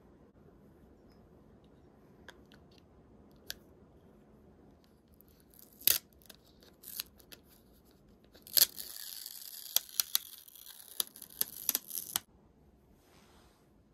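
A few sharp plastic clicks from handling a powder compact. Then a clear protective plastic film is peeled off the cushion powder's sifter: about three and a half seconds of crackling and tearing with sharp clicks through it, which stops abruptly.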